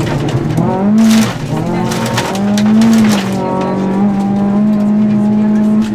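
Rally car engine heard from inside the cabin, revving hard twice with a brief drop in between, then holding steady at high revs. Bursts of gravel noise from the tyres come with the revving.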